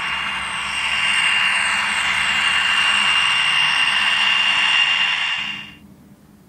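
HO scale Atlas GP40 model diesel locomotive running along the layout, its onboard sound decoder playing diesel engine sound through a small speaker together with motor and wheel noise: a steady hiss with a high whine. The sound fades out about a second before the end.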